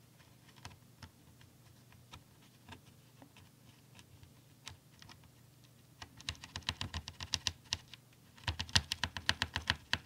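Mechanical keyboard with clicky blue switches, freshly lubed with a generous coat of Vaseline, being pressed: a few scattered clicks, then two runs of rapid key presses, the second the loudest.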